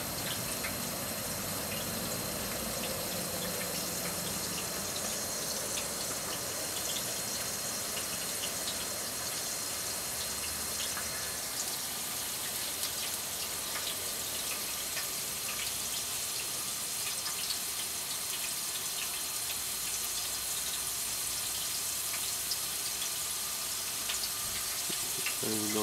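Water boiling in a heated vapor phase soldering pan, a steady hiss with small scattered crackles and pops. The water layer on top of the Galden is boiling off, holding the pan at about 100 °C until it is gone.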